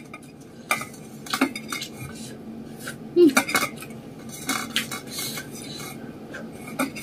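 Fingers scraping and picking rice from a stainless steel bowl: scattered light scrapes and clicks against the metal.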